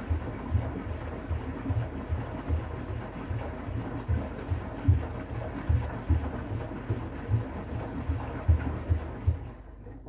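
Bosch front-loading washing machine drum turning in a hot 90 °C drum-cleaning wash, water and foam sloshing inside with irregular low thuds. The sound dies away near the end.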